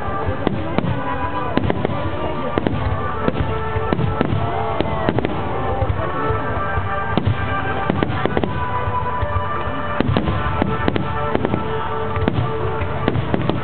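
Aerial fireworks display: a rapid, continuous run of bangs and crackling bursts, some with whistling glides, over background music.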